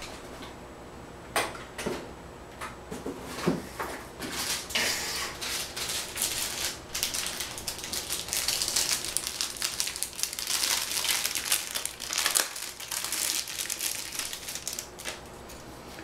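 Plastic packaging crinkling and rustling as a motherboard I/O shield is taken out of its bag, after a few separate clicks in the first few seconds. The crinkling is dense through the middle and thins out near the end.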